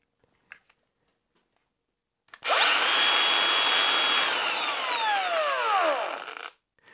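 Makita 18V cordless angle grinder running with no disc fitted. It is switched on about two seconds in and reaches full speed, about 8,500 RPM, almost at once. Then it is switched off and coasts to a stop with no brake, a very, very slow wind down with its whine falling in pitch.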